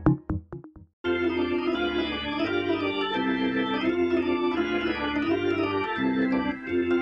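Electronic meme music with sharp beats dies away in the first second. After a short gap, organ music starts about a second in: held chords under a slowly wavering tune.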